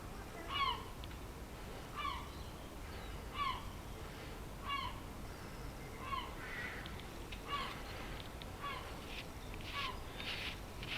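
A bird calling over and over, one short falling note roughly every second and a half. Near the end there are a few brief rustling or scraping sounds.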